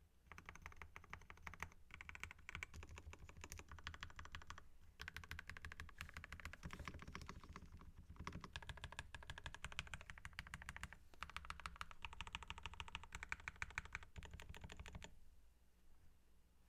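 Keychron K2 mechanical keyboard typed on quickly, a dense run of keystroke clicks from lubed Gateron Red linear switches on a foam-dampened POM plate, with brief pauses three times; the typing stops a second or so before the end.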